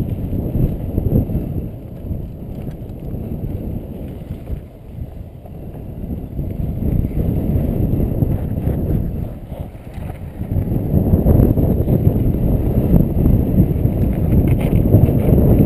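Wind rushing over a helmet camera's microphone, mixed with the rumble and rattle of a mountain bike rolling down a dirt and rock trail. It grows louder about two-thirds of the way in.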